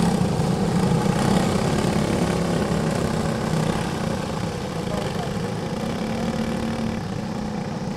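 Engines of a pack of racing go-karts running at speed as they pass close by, loudest about a second in, then slowly fading as the karts draw away around the turn.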